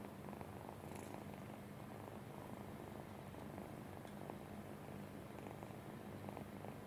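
Domestic cat purring steadily, a fast even low pulse.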